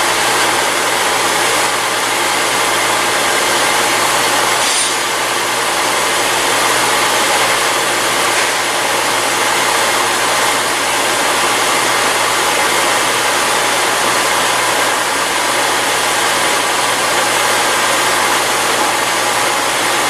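Steady, loud, even drone of a Genesis G70 running in gear on a hoist with its wheels turning, shop noise mixed in. No distinct knock stands out; the right-front clunking under test is buried in it.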